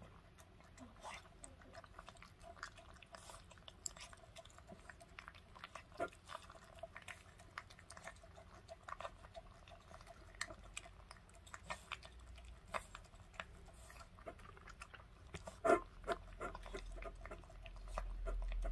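A puppy eating dry kibble from a stainless steel bowl: irregular crunches and small clicks of kibble and teeth against the metal, with one louder clack about three-quarters of the way through. A low rumble builds near the end.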